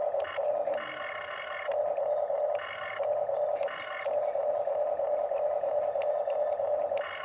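Electric gear motors of a toy RC excavator whining as the boom and bucket move. A steady mid-pitched hum runs throughout, with several short bursts of higher-pitched whining as motors start and stop.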